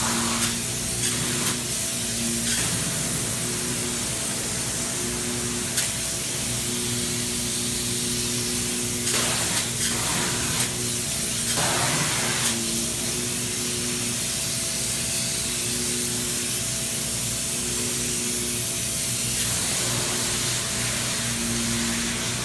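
Spray foam gun hissing steadily as it sprays closed-cell polyurethane foam insulation, with two louder surges about ten and twelve seconds in.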